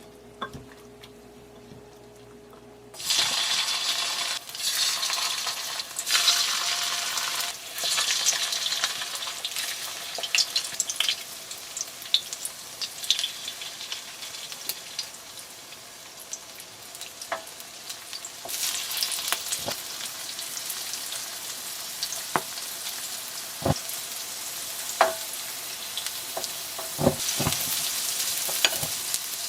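Battered oysters (굴전) frying in oil in a pan. The sizzling starts suddenly about three seconds in and keeps on, with sharp taps of a utensil against the pan, more of them near the end.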